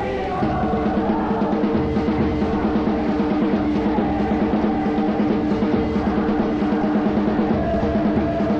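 Music with a fast, steady drum beat under several held tones, starting about half a second in as the crowd chanting gives way.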